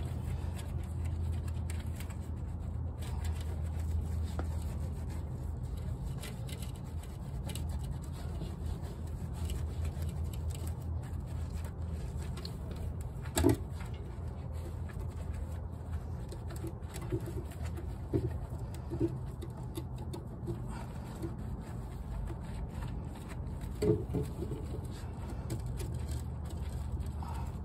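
Wet rag scrubbing a greasy steel car subframe in hot soapy water, over a steady low hum. A pigeon coos a few times in the second half.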